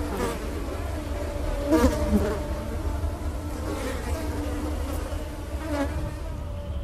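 A buzzing drone that wavers in pitch and swells now and then, over a steady low rumble.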